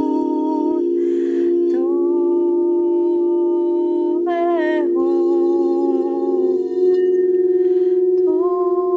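Crystal singing bowls ringing with a steady sustained hum, while a woman sings long wordless held notes over them. She moves to a new note a few times, with a short breath between phrases about a second in and again near the end.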